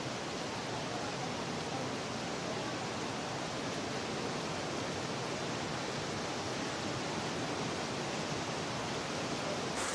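Torrential rain pouring down onto a flooded street: a steady, even hiss.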